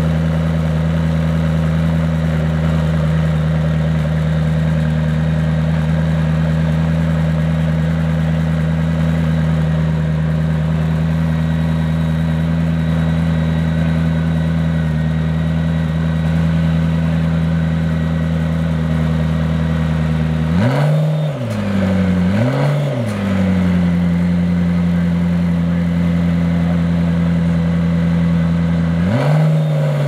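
McLaren P1 GTR's twin-turbo V8 idling steadily with a deep, even hum, then blipped twice in quick succession about two-thirds of the way in, the revs rising and falling back each time, and blipped once more at the very end.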